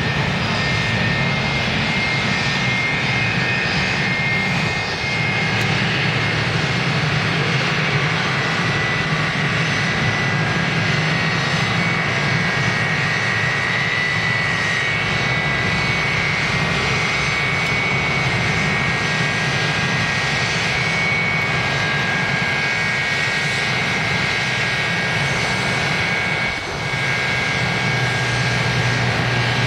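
Aircraft turbine engines running steadily: a low drone with a high, steady whine over it, from the MD-83 airliner's turbofans taxiing and a C-130 turboprop passing overhead. The sound dips briefly about five seconds in and again near the end.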